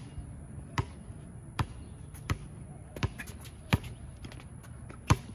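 A basketball being dribbled on a hard court: seven sharp bounces at a steady pace of a little more than one a second, with a longer pause before the last bounce near the end.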